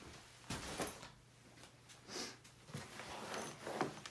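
Handling of a large art portfolio case being moved aside: a few soft knocks and sliding, rustling sounds spread through.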